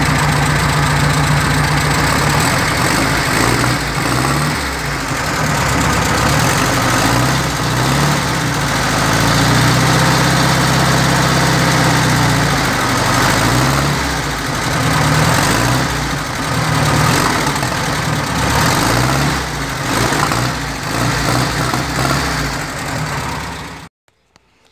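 Volkswagen Beetle's air-cooled flat-four engine running with the muffler removed, straight through the bare pipe: idling, with repeated throttle blips that rise and fall in pitch. It cuts off suddenly near the end.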